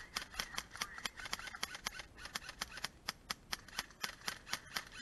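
Airsoft guns firing in an exchange: a rapid, irregular run of sharp single-shot clicks, several a second.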